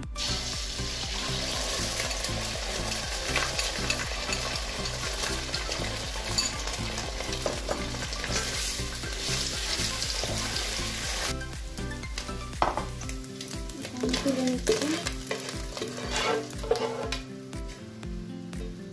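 Beaten egg sizzling loudly in hot oil in a nonstick frying pan while a spatula stirs and scrambles it. The sizzle dies down about two-thirds of the way through, and spatula scrapes and knocks follow as the scrambled egg is scraped out of the tipped pan.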